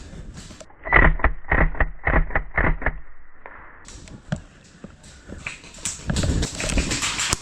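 Well Pro WE09 gas blowback airsoft rifle firing a quick string of about seven sharp shots, roughly four a second. More clicks and handling noise follow near the end.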